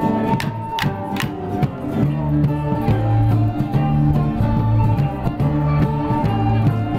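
Border morris band playing a folk dance tune with a strong repeating drum beat. Dancers' wooden sticks clack together sharply about three times in the first second or so.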